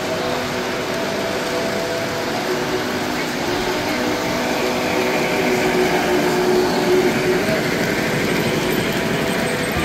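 Three-rail O-gauge model steam locomotive and its train rolling past on the track: a steady running rumble that grows a little louder about halfway through as the locomotive passes close, over a background of held tones and chatter in the hall.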